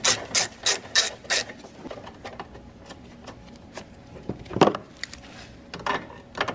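Ratchet wrench clicking in short runs as it turns a 10 mm bolt, about three clicks a second at first, then scattered ticks, with one louder knock about four and a half seconds in.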